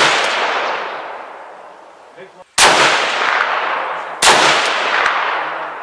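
Three shots from a 6.5 Grendel AR-15 rifle, one right at the start and two more about a second and a half apart from about two and a half seconds in. Each crack is followed by a long echo that dies away over about two seconds.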